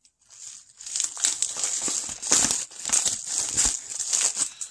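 Crinkling and rustling of padded mailers and card packaging being handled. It starts about a second in and goes on in quick irregular crackles.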